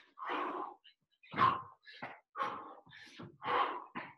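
A man breathing hard and fast from exertion, about seven quick breaths in and out in four seconds with short gaps between them.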